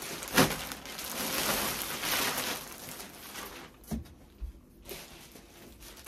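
Rustling and handling noise, as of clothes and their packaging being moved about, with a sharp tap about half a second in and a short knock about four seconds in.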